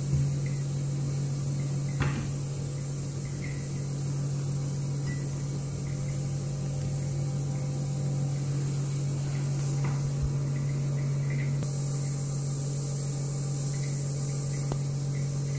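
Steady low hum of running benchtop lab equipment, with two light knocks in the first two seconds as the pH electrode and its holder arm are handled.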